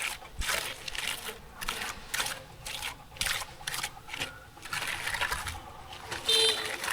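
Repeated rough scraping strokes of a hand tool on gravel and road surface, about two a second, with a brief high squeak near the end.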